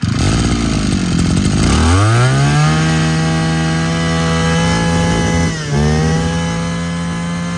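Shindaiwa S45 45cc two-stroke brush cutter engine running loud. About two seconds in it speeds up sharply to a steady high pitch, then it dips once briefly and recovers.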